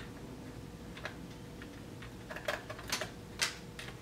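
Light, sharp plastic clicks and taps from an RC transmitter and a small Phillips screwdriver as the transmitter's battery cover is unscrewed and taken off: one click about a second in, then several in quick succession in the second half.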